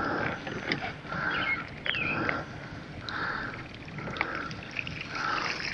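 Splashing and gurgling at the river's surface as the fishing line is drawn in, swelling in pulses about every three-quarters of a second. A brief high chirp sounds about two seconds in.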